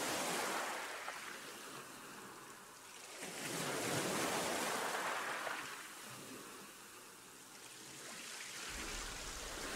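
Faint outdoor rushing noise that swells and fades in slow waves, with no distinct knife or cutting sounds.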